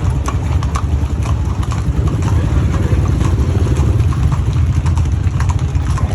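A motor vehicle engine running at low revs, a steady low rumble, with scattered sharp clops of horse hooves.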